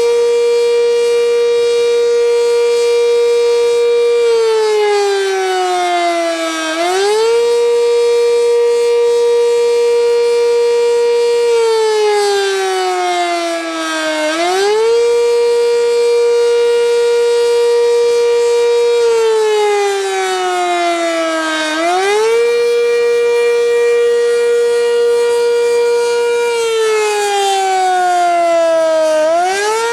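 Sentry 10V outdoor warning siren sounding during a test. It holds a steady high tone for about four seconds, slides down in pitch over two or three seconds, then quickly climbs back up, repeating this about four times.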